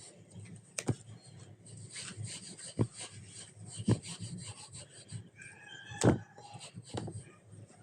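Slime being squished and kneaded by hand, a continuous sticky rustling broken by several sharp pops, the loudest about six seconds in.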